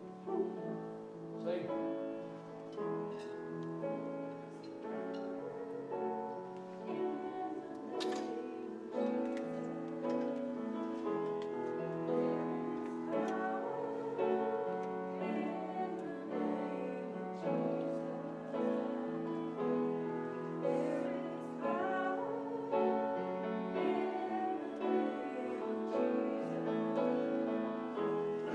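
A hymn sung slowly to piano accompaniment, held chords with voices over them.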